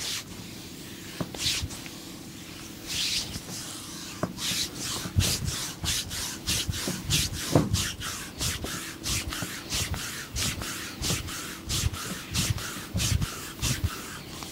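Hands scratching and rubbing during a massage: a few separate scratchy strokes, then from about four seconds in a quick even run of short strokes, two or three a second, with some dull thuds among them.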